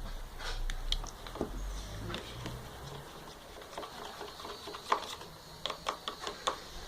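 A spatula stirring a glue-and-baking-soda slime mixture in a container, making irregular small clicks, taps and wet sticky sounds that come more often in the second half.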